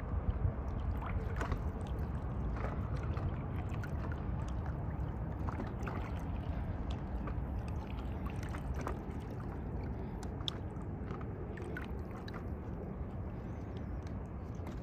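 Small irregular splashes and laps of water against a stand-up paddleboard on choppy lake water, over a steady low rumble of wind on the microphone.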